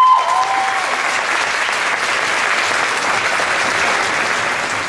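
Audience applauding and cheering in a gymnasium, with a few rising whistles in the first second.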